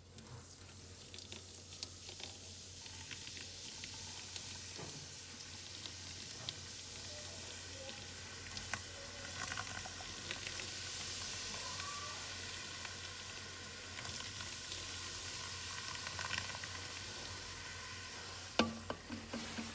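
Coca-Cola fizzing as it is poured onto and soaks a sheet of paper over a stainless steel sink: a steady fine hiss of bursting bubbles with faint crackles. A single knock near the end.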